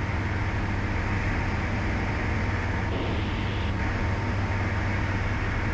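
Steady cockpit drone of a Breezer B600 Elegance light aircraft in level flight: engine and propeller running at a constant setting, mixed with airflow noise. A brief rise in hiss about three seconds in.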